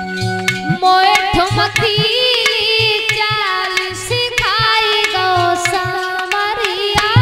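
A woman singing a folk devotional song in long, wavering held notes, her voice coming in about a second in. Under it run dholak drum beats and rhythmic hand-clapping.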